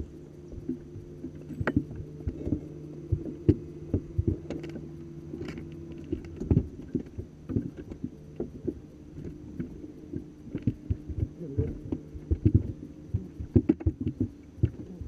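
Steady electric hum of a bass boat's bow-mounted trolling motor, with irregular knocks and thumps against the boat's hull and deck.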